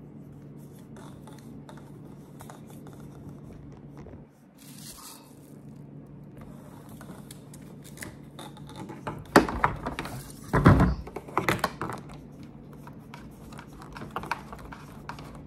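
Corrugated plastic drain hose being handled and screwed onto a plastic sink basin: scattered scraping, rustling and small clicks, with a cluster of loud rubbing and knocks between about nine and twelve seconds in.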